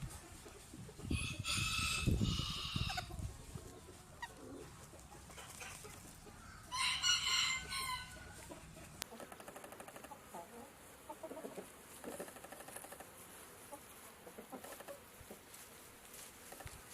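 Rooster crowing twice, each crow about two seconds long: one starting about a second in, the other about six and a half seconds in. Fainter, softer chicken sounds, like clucking, follow in the second half.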